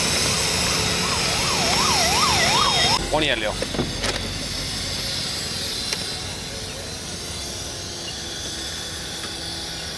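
A siren-like warbling tone, rising and falling about three times a second for about two seconds, over steady background hiss. It breaks off about three seconds in, leaving a quieter steady hiss.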